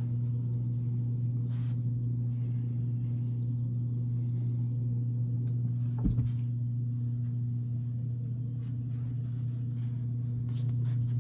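A steady low hum runs throughout. About six seconds in there is a single short thump, a cat jumping down from a wooden dresser onto the carpeted floor.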